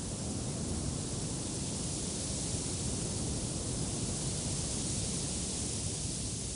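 Wind blowing steadily: an even rushing noise with a fluttering low rumble underneath.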